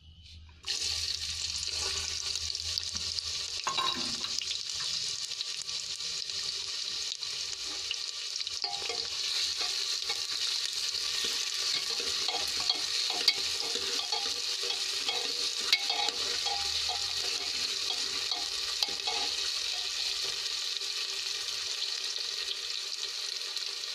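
Sliced onions sizzling in hot oil in a pressure cooker, starting about half a second in as they go into the pan, then frying steadily with a dense hiss while a steel ladle stirs them, with small clicks and scrapes of metal on metal.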